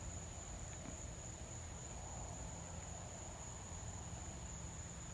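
Night insects calling in one unbroken high-pitched drone, over a low outdoor background rumble.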